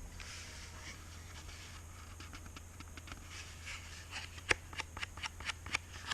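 Close-up handling of a vintage Newman mechanical pencil: soft rubbing and rustling, then a run of sharp, light, irregular clicks from about halfway through, the loudest a little past two-thirds in.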